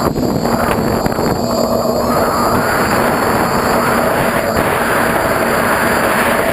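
DeadCat quadcopter's electric motors and propellers running steadily in flight, a humming tone over a rush of wind on the onboard camera's microphone.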